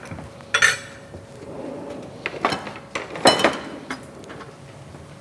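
Metal cookware and utensils clattering: a few sharp clinks and knocks of a pan and utensils at the stove, the loudest about three seconds in.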